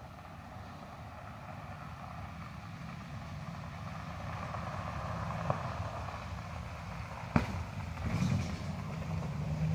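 A pickup truck's engine and tyres approaching, growing steadily louder. Two sharp clicks come about halfway and about three-quarters of the way through.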